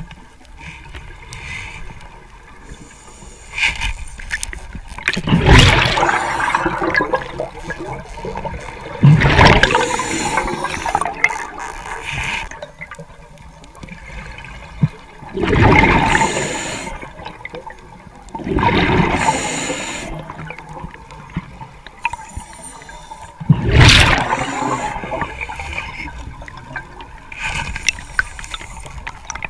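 A scuba diver breathing underwater through a regulator: bubbly, gurgling exhalations that come five times, a few seconds apart, with quieter hissing and water wash between.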